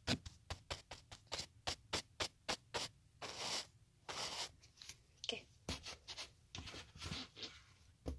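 Hands tapping and rubbing directly on a phone right at its microphone while pretending to apply makeup to the camera lens: a quick run of taps, about three or four a second, with two longer scratchy rubs around the middle.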